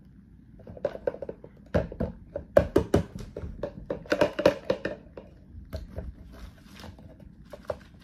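Hands working a clear plastic bag of potting dirt and small stones: a run of crinkles, rattles and small knocks, busiest in the first half and thinning out after about five seconds.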